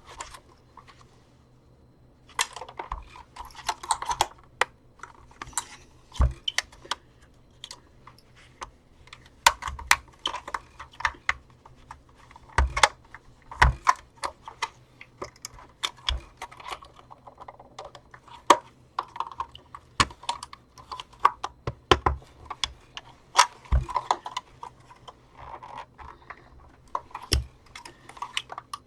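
Plastic casing of a handheld vacuum being pried and flexed apart by hand: irregular clicks, snaps, knocks and creaks of hard plastic as its internal clips resist.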